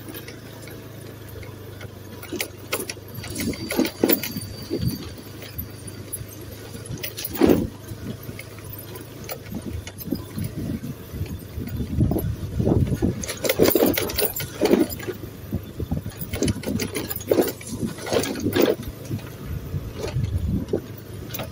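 Car driving over a rough, unpaved dirt road: a steady engine hum under irregular knocks and rattles as the car jolts over the bumps.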